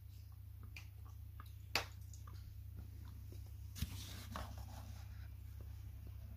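Faint crunching of a chocolate-coated almond being chewed and small handling noises of a paperboard box: scattered soft clicks and crackles, with two sharper clicks about two and four seconds in, over a steady low hum.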